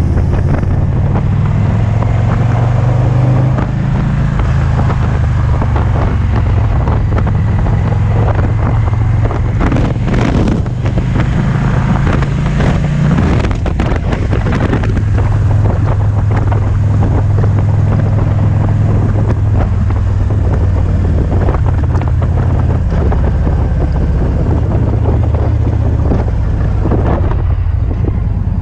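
2008 Victory Vision's V-twin engine running steadily at road speed, heard under heavy wind buffeting on a helmet-mounted camera's microphone. The wind noise is strongest about 10 to 14 seconds in.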